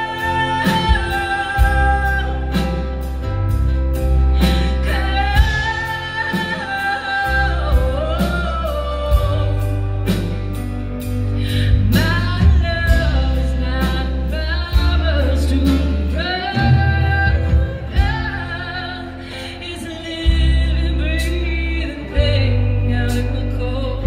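Live band playing, a woman singing the lead over ukulele, electric bass, electric guitar and drums, with a steady drum beat and a heavy bass line.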